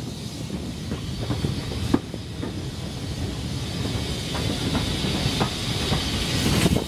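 Steam-hauled train (BR Standard Class 9F steam locomotive) rolling slowly: a low rumble with wheels clicking over the rail joints now and then, and a hiss of steam growing louder through the second half.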